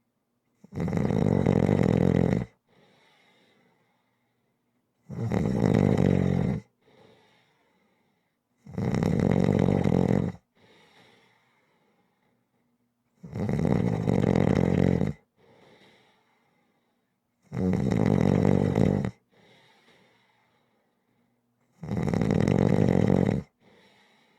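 Rhythmic snoring: six loud snores, each about two seconds long, coming about every four seconds, with a much fainter sound after each one.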